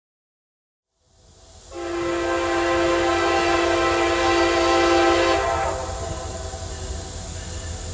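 Approaching CSX SD40-3 diesel locomotive sounding its air horn in one long blast of about four seconds, a chord of several notes, over the low rumble of the train. The sound fades in from silence about a second in, and after the horn stops only the rumble remains.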